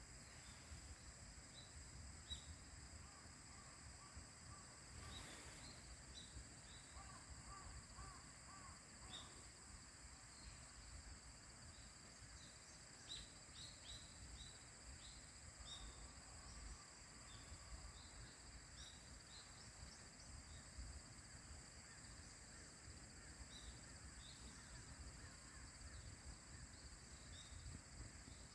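Faint outdoor ambience: a steady high-pitched insect drone, with scattered short bird chirps and a low rumble underneath.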